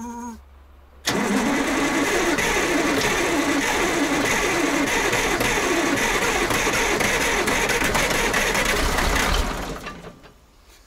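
The KAZ-4540 Kolkhida truck's diesel engine being turned over by its starter on a first start attempt after years of standing, cranking briskly. The cranking starts suddenly about a second in, runs steadily for about eight seconds and dies away near the end.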